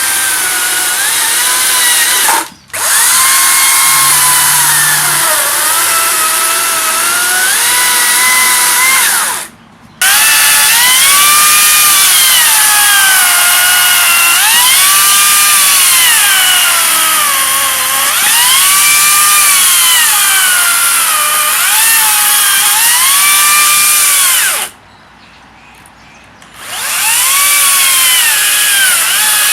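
Makita cordless battery chainsaw's electric motor running under load, most likely cutting wood. Its whine sags in pitch and rises again over and over as the load changes. It cuts out three times: briefly after about two seconds, again about a third of the way in, and for about two seconds near the end.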